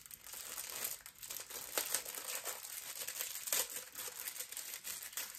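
Thin plastic bag crinkling and crackling in the hands as it is handled and pulled at, with a few sharper crackles about two and three and a half seconds in.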